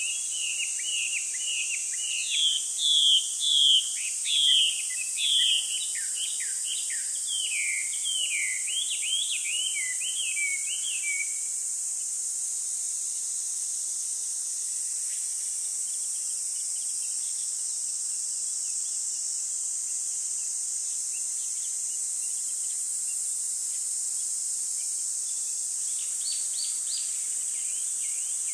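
Quick runs of short, high chirping calls over a steady high-pitched hiss. The chirps are loudest for about the first eleven seconds, then fade and return briefly near the end.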